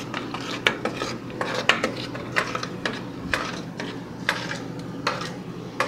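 Stirring utensil scraping and knocking against the sides and bottom of a stainless steel saucepan as a thick, lumpy cocoa, sugar and water mixture is stirred, in irregular clinks about two a second.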